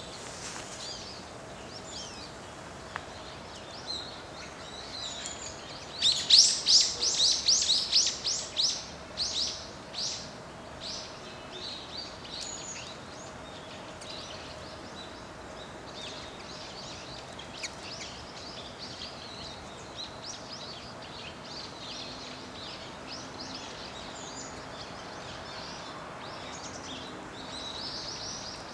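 Wild birds chirping and calling over a steady background hiss. About six seconds in, a loud rapid series of high chirps runs for around four seconds, then fades into scattered single calls.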